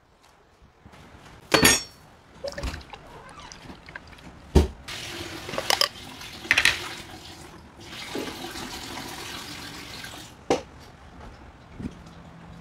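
Salad dressing sloshing and pouring from a glass jar onto lettuce, with several knocks and a ringing clink as the jar is handled.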